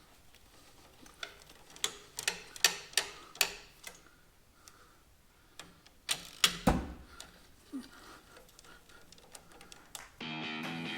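Clicks and knocks of hand tools and metal parts being worked on: a quick run of sharp clicks a couple of seconds in, then a heavier knock past the middle. Music comes in near the end.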